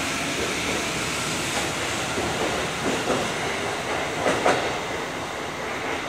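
Tokyo Metro 15000-series electric train pulling out, with steady running noise and wheels clacking over rail joints. The loudest is a pair of clacks about four and a half seconds in, as the last car passes, and then the noise starts to fade.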